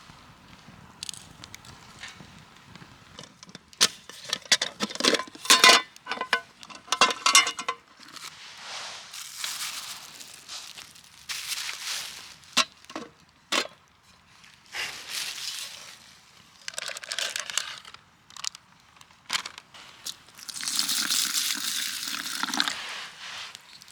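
Crinkling and rustling of objects being handled, broken by sharp clicks and light clatter. A dense run of clicks comes about four to eight seconds in, and a longer, louder rustle near the end.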